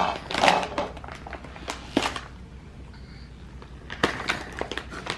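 Plastic packaging bag crinkling and rustling as it is handled and torn open, in irregular bursts with a sharp click about two seconds in and a quieter stretch before more crinkling near the end.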